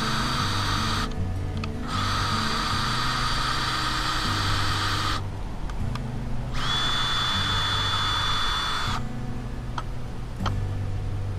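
Ryobi cordless drill boring a screw hole into a wooden gate, running in three bursts with short pauses between, the last with a steady high whine. A couple of light clicks follow, with background music underneath.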